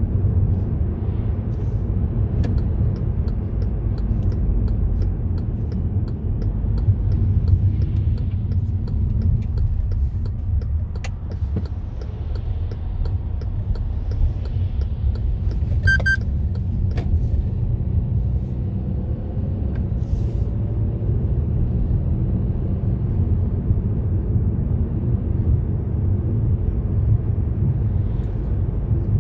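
Steady low rumble of a car driving on the road, heard from inside. Faint regular ticking runs through the first ten seconds or so, and a short high beep sounds about halfway through.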